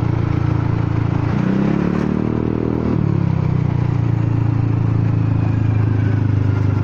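Honda Forza 300 scooter's single-cylinder engine running while riding, a steady low engine note. Between about one and a half and three seconds in, a higher engine note climbs and then falls away.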